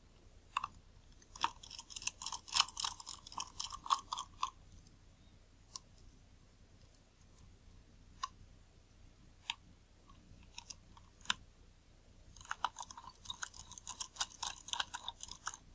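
Small metal clicking and scraping from a Nikon Series E 50mm f/1.8 lens being taken apart: a small screwdriver works the rear mount screws and fingers handle the lens's metal parts. The clicks come in two dense bursts, a second or so in and again near the end, with single clicks between.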